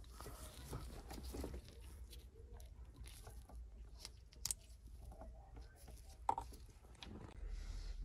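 Faint handling noises of gloved fingers fitting a small replacement bulb into its plastic lamp holder, with a few light clicks, the sharpest about four and a half seconds in and another past six seconds.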